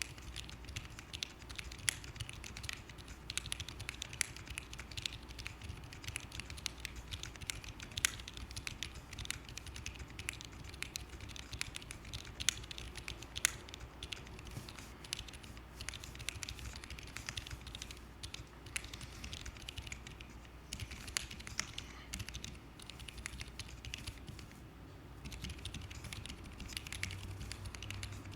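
Continuous typing on a Keychron Q7 mechanical keyboard with Wuque WS Silent Tactile switches, a full aluminium plate, silicone dampening pad and case foam, PBT keycaps and lubed Durock V2 stabilizers. Keystrokes come in an irregular stream, with a brief lull near the end.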